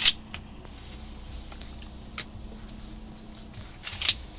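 Mossberg 500 pump-action shotgun being loaded: sharp metallic clicks as shells are pushed into the magazine tube, then a louder double clack near the end as the pump is worked.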